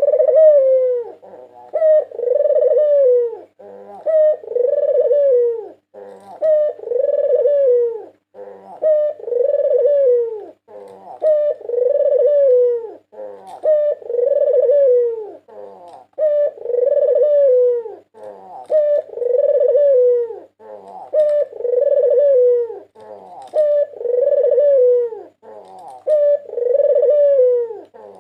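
A white barbary dove (puter putih) cooing over and over, one phrase about every two and a half seconds, each ending in a falling note.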